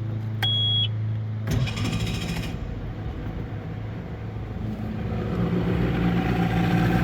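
Tracker 40 hp outboard made by Mercury being restarted: a short electronic beep, then the electric starter cranks for about a second and the engine fires and runs, getting louder toward the end.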